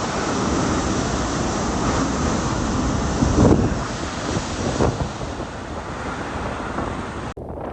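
Typhoon wind buffeting the microphone with a steady rushing noise, with two louder surges about three and a half and five seconds in. It cuts off abruptly just before the end.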